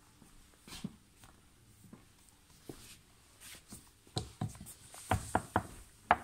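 A hand tapping and knocking on a PVC inflatable boat's ribbed low-pressure inflatable floor and grey plastic transom: a few scattered taps, then a quick run of sharper knocks in the last two seconds.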